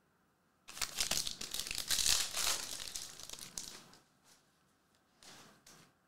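A foil trading-card pack wrapper torn open and crinkled for about three seconds, starting just under a second in, followed by a few soft rustles of cards being handled.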